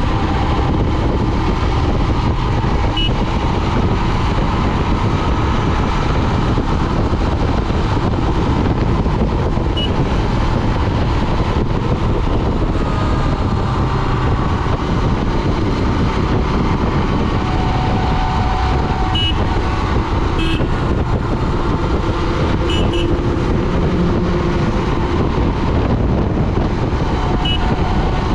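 Royal Enfield Himalayan's 411 cc single-cylinder engine running at a steady highway cruise, mixed with wind and road noise, with a few short high chirps now and then.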